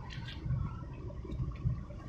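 Wind buffeting the microphone as an uneven low rumble, with choppy harbour water splashing and lapping close by, one brief splash just after the start.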